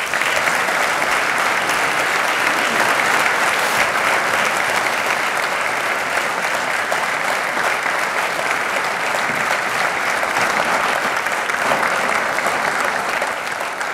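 A large seated audience applauding: dense, steady clapping that starts suddenly and thins out near the end.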